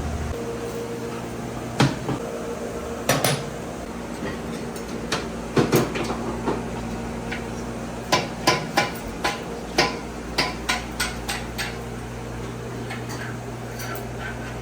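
Metal clanks and knocks of tools and transmission parts being handled during a teardown, irregular at first, then a quick run of taps about eight seconds in, over a steady shop hum.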